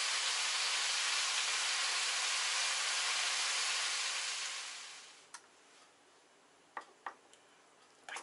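Steady sizzling hiss of food frying in a hot pan, which fades away a little past halfway. A few light clicks of a small knife against a glass plate follow.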